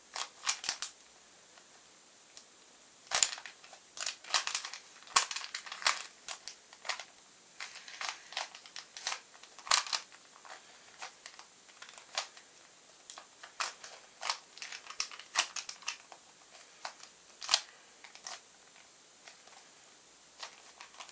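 Plastic Rubik's Cube being turned by hand in a solve, its layers clicking and clacking in quick irregular runs separated by short pauses.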